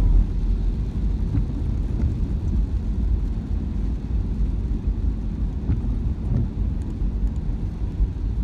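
Car cabin noise while driving on a wet road in rain: a steady low rumble of engine and tyres, with a short knock right at the start and a few faint ticks.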